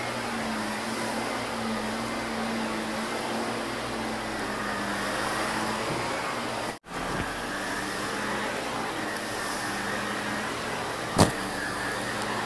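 Shark upright vacuum cleaner running over carpet: a steady motor hum with a constant low tone and rushing suction air. It drops out for a moment about halfway through, and there is a sharp click near the end.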